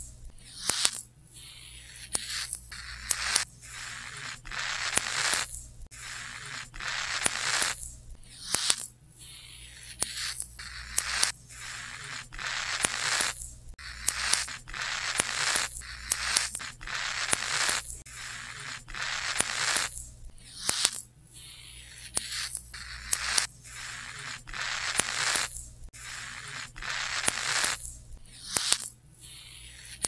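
Tarantula hissing: repeated short, raspy hisses about one every one to two seconds, with sharp clicks among them.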